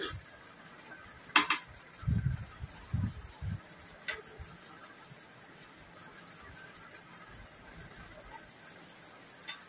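Stainless steel plates and bowls clinking and knocking as they are handled while eating by hand. The loudest is a sharp metallic clink about a second and a half in, followed by a few dull thuds and scattered light clicks.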